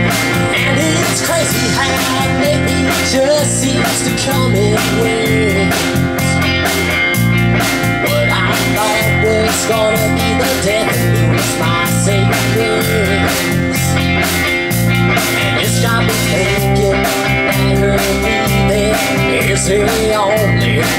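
Live band playing a country song on electric guitars, bass and a drum kit, in an instrumental break with a lead guitar line that bends and wanders over a steady beat.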